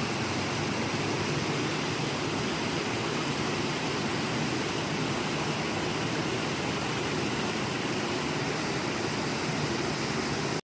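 Steady rushing noise, unbroken and even, that cuts off suddenly near the end.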